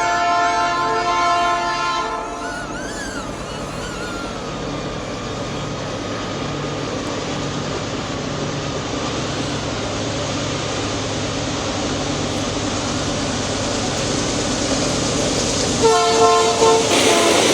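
A diesel locomotive's multi-tone air horn sounds for about the first two seconds, then the train runs by with a steady rumble and rail noise, and the horn sounds again briefly near the end.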